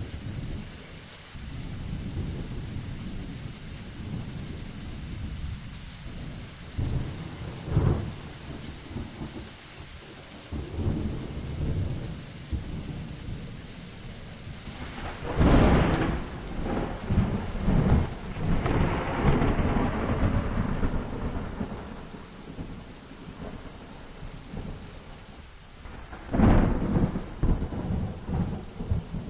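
Thunderstorm: steady rain with rolling thunder. A sharp clap comes about a quarter of the way in, a loud crack about halfway rumbles on for several seconds, and another sharp clap strikes near the end.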